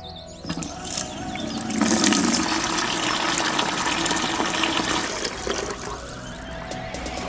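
Water poured from a small toy bucket splashing into a shallow miniature pond. The pour starts about half a second in, is loudest for a few seconds in the middle, then eases off toward the end.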